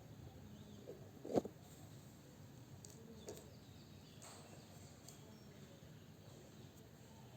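Quiet handling of fresh thuthuvalai leaves being picked over and cleaned by hand, with one sharp click about a second and a half in and a softer one a couple of seconds later.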